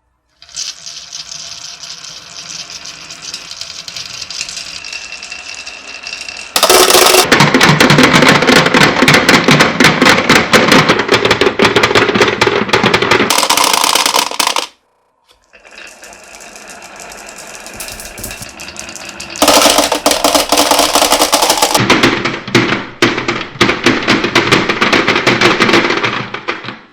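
Marbles rolling and clattering down a wooden HABA marble run. A lighter rolling rattle builds into a much louder, dense clatter of rapid clicks. This stops suddenly about halfway through, and the same pattern of quieter rattle then loud clatter comes again.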